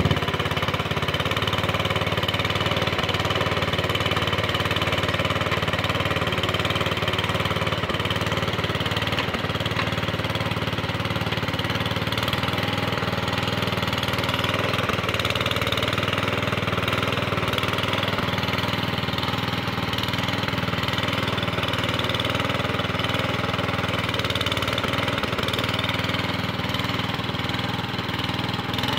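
Sears Suburban 15 garden tractor engine running steadily at an even speed while the tractor pulls on a chain hooked around a bush.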